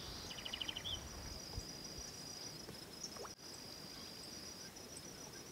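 Steady high-pitched insect trill with a short bird trill about half a second in.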